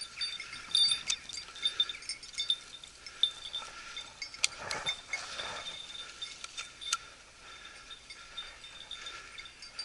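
A hunting dog's bell jingling on and off at an uneven pace as the dog works through the scrub, tracking the unseen dog's movement.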